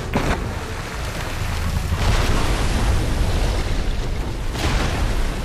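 Film sound effect of a rooftop water tower bursting and a great mass of water rushing and surging over a deep rumble. A sharp crack comes just after the start, and the rush swells about two seconds in.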